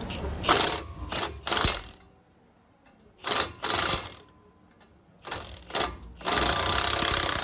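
Cordless impact wrench hammering at an 18 mm brake caliper bracket bolt to loosen it, in a series of short trigger bursts ending in one longer run of about a second near the end.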